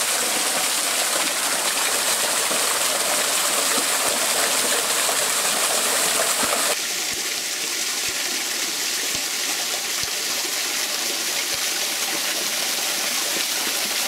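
Water rushing steadily down a small travertine waterfall. It turns a little quieter abruptly about seven seconds in.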